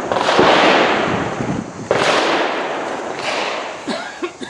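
Handgun shots, each trailing off in a long echo: one right at the start and a sharp one about two seconds in, with a few fainter pops near the end.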